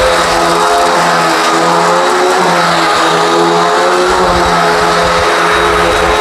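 Hoover WindTunnel High Performance upright vacuum running steadily, its motor a steady whine that wavers slightly in pitch as it is pushed over an outdoor rug, with low rumbles from the brushroll beating the rug.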